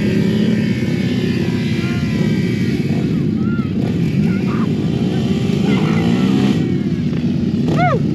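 Off-road vehicle engine running steadily, its pitch rising and falling slightly as the throttle changes.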